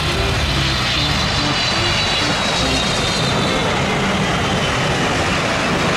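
Wide-body twin-jet airliner's engines as it moves along the runway: a loud, steady rush of jet noise with a high whine that falls slowly in pitch from about a second in.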